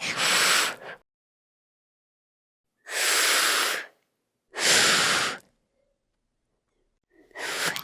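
Designed creature sound effect for the small tyrannosaur Moros intrepidus: four short, breathy hisses, each under a second, with silent gaps between them.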